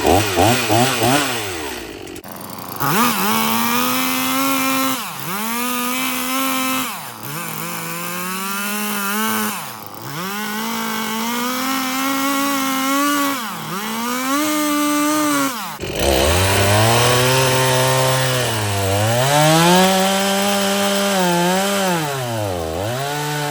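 Chainsaw cutting through a log, its engine note dipping under load and climbing back every second or two as the bar is worked into the wood. The sound jumps abruptly about two seconds in and again near sixteen seconds, where the engine settles to a lower pitch.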